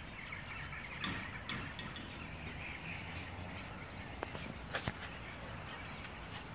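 Massed chatter of a large flock of common starlings settling to roost in the treetops, a dense steady babble of chirps and whistles. A few sharp clicks stand out, about a second in and twice near five seconds.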